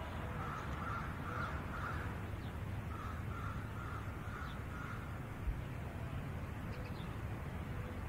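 Crows cawing in two runs of about four harsh calls each, roughly two calls a second, over a steady low background rumble; a brief low thump about five and a half seconds in.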